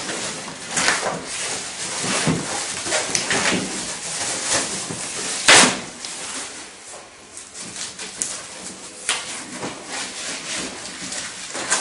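Packaging being handled and pulled off a bicycle frame: a run of short rustles and crinkles, with one sharp snap about five and a half seconds in.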